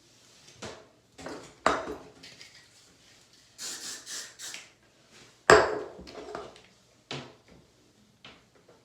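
Hair tools being handled: several knocks and clatters on a hard surface, with three short hissing rushes in the middle and the loudest knock about five and a half seconds in.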